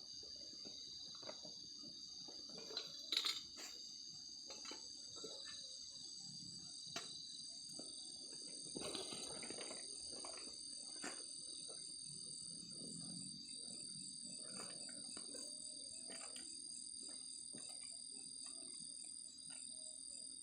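Insect chorus chirring steadily at several high pitches, with scattered small clicks and rustles; a sharp knock about three seconds in and a brief rustling noise around nine seconds.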